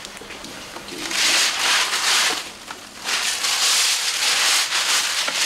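Plastic bags rustling and crinkling as they are handled, in two long loud bursts, the second starting about three seconds in.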